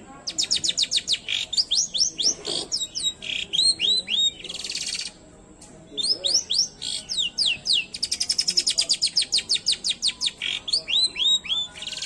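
Long-tailed shrike (cendet) singing in two loud bouts: fast runs of sharp high chirps, about ten a second, mixed with curving whistled notes and a harsh scratchy note, with a pause of about a second between the bouts around five seconds in.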